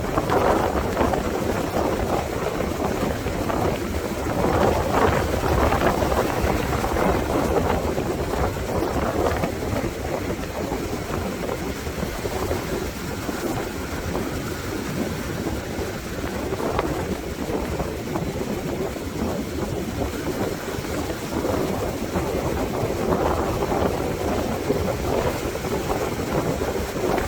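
Gusting wind buffeting the microphone over the steady wash of ocean surf breaking on the beach, swelling in stronger gusts now and then.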